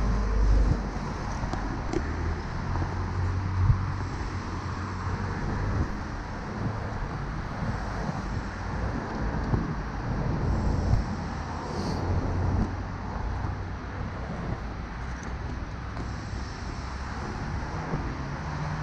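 Road traffic on a city street: cars driving past close by, with a steady low engine and tyre noise and a few louder swells as vehicles pass.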